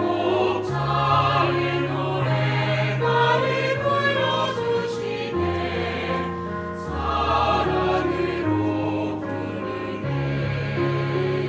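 Four-part mixed youth choir (soprano, alto, tenor and bass) singing a slow hymn-like song in Korean, with piano accompaniment holding sustained low chords beneath the voices.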